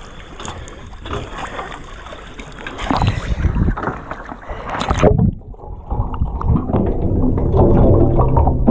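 Water sloshing and splashing against the cage floats, with wind on the microphone. About five seconds in, the microphone goes under the water: the high sound cuts off suddenly and leaves a muffled underwater rumble with a low, steady hum.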